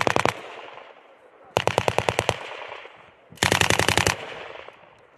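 Belt-fed machine gun firing short bursts: one ends just after the start, then two more of under a second each come about 1.5 and 3.5 seconds in. Each burst is a fast, even string of shots followed by a fading echo.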